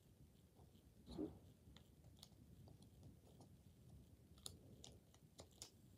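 Faint clicks and crinkles of a nail clipper snipping into the foil wrapper of a Pokémon booster pack, with a short dull sound about a second in.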